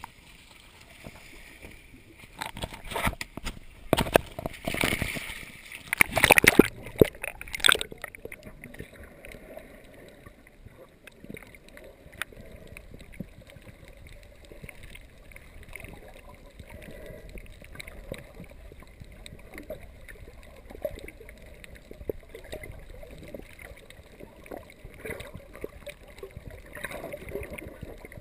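Water splashing and sloshing around a GoPro as it goes into the sea, loud and irregular for the first eight seconds or so. Then the muffled, even underwater hiss of a snorkel dive over a reef, dotted with faint crackling ticks.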